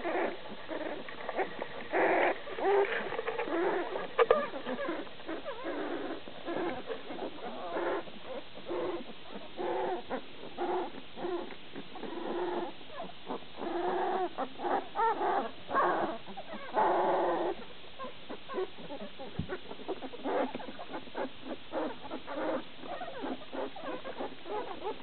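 Standard poodle puppies whimpering and squeaking in many short, repeated cries as they wake and look to nurse.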